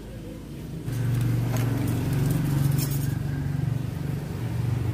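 A motor vehicle's engine running steadily, the low hum coming in about a second in, with a few light clicks from handling small parts.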